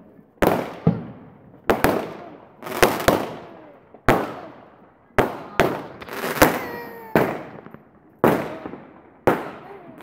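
Fireworks bursting overhead in a rapid barrage: about a dozen sharp bangs, each dying away quickly, coming roughly every half second to a second.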